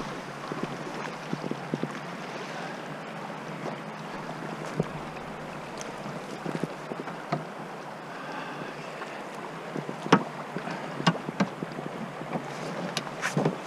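Steady rush of a fast, high-flowing river, with scattered knocks and clacks of a paddle and gear against a Mad River canoe's hull and thwarts; the sharpest knock comes about ten seconds in and several more near the end.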